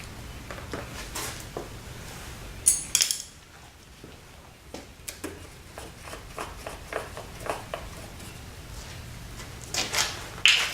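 Small hand tools and parts being handled, with light clicks and taps throughout and a few louder metallic clinks about three seconds in and again near the end.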